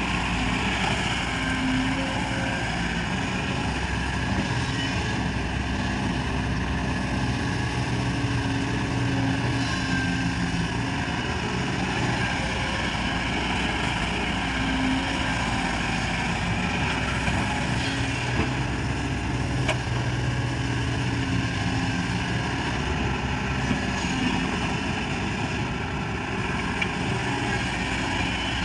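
Kobelco hydraulic excavator's diesel engine running steadily while digging, its low note rising and falling slightly as the load changes.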